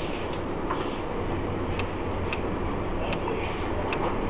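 Taiwan Railways EMU800 commuter train running, heard from inside a motor car: a steady rumble with a low hum, with a run of sharp ticks every half second to a second from about two seconds in.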